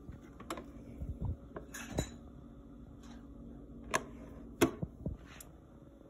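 Scattered light clicks and knocks, about eight in all, the sharpest about four seconds in and just after four and a half seconds, over a faint steady hum.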